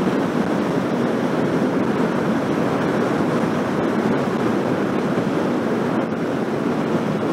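Steady rush of wind noise on the rider's microphone while a Suzuki GSF 1250 Bandit motorcycle cruises at steady road speed, its engine and tyre noise blended into the even roar.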